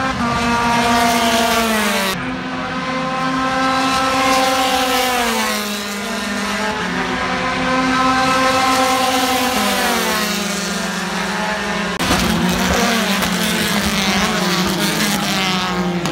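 Open-wheel race car engines running hard on the circuit, their high-revving note holding and then dropping in pitch several times. The sound changes abruptly about two seconds in and again about twelve seconds in.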